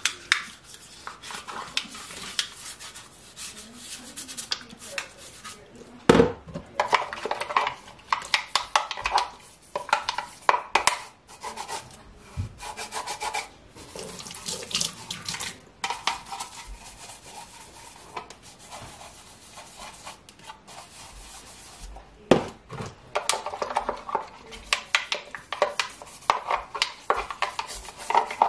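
Toothbrush scrubbing plastic rabbit feeders in a stainless steel sink: runs of quick rubbing strokes, with two louder knocks of plastic against the sink.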